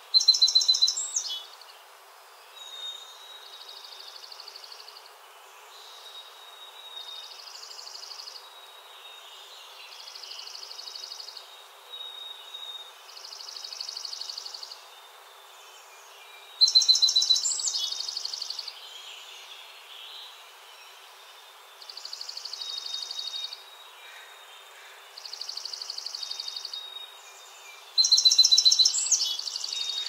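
A small brown streaked songbird singing short, high, rapid phrases, loud three times: at the start, about 17 seconds in, and near the end. Fainter high songs repeat every two to three seconds in between, over a faint steady hiss.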